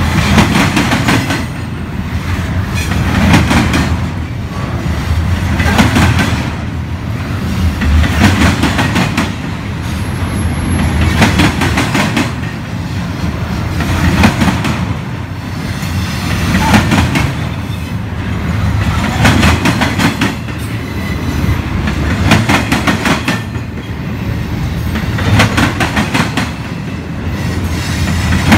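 Double-stack container train's well cars rolling past close by: a steady low rumble, with a cluster of wheel clicks every two to three seconds.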